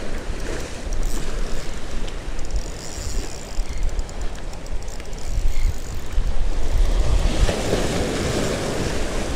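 Wind buffeting the microphone over waves washing against the jetty rocks, with a surge of surf about seven seconds in.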